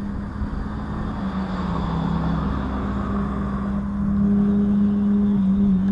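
An engine's steady drone, getting louder over the last two seconds or so.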